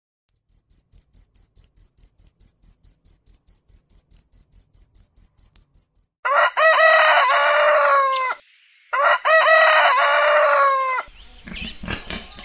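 A cricket chirping in an even rhythm, about six high chirps a second, then a rooster crowing twice, each crow about two seconds long and louder than the cricket. A few soft clicks near the end.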